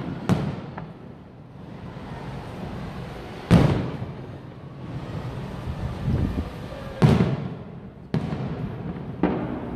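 Aerial firework shells bursting: five sharp booms, two a few seconds apart and then three in quick succession near the end, each trailing off in a short rumbling echo over a steady low background rumble.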